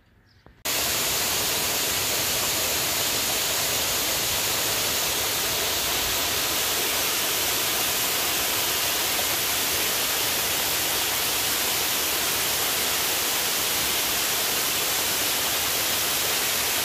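Tufa waterfall pouring over limestone steps into a brook: a steady, hissing rush of water that cuts in suddenly about half a second in.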